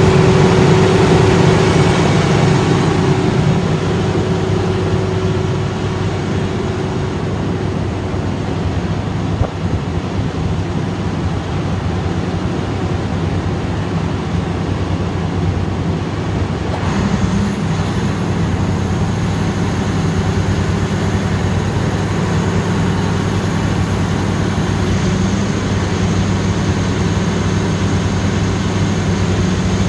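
Perkins diesel engine of a 500 kVA generator set running steadily with a deep, even hum, a little louder in the first few seconds.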